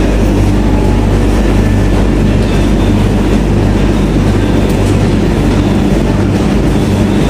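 Steady, loud rumble and low hum of commercial tumble dryers running, with clothes tumbling inside the drums.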